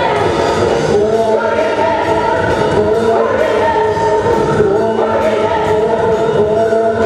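Live band playing a song with singing over it and a steady beat.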